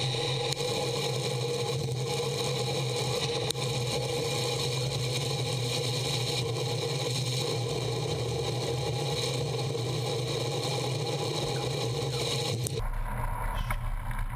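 Road bike rolling on asphalt, heard through a bike-mounted action camera: steady tyre and drivetrain noise. About thirteen seconds in, a low wind rumble on the microphone comes in.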